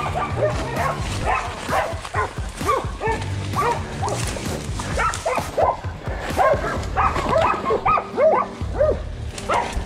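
Several hunting dogs barking and baying in quick, overlapping barks without a break: a pack of hog dogs holding a caught wild hog.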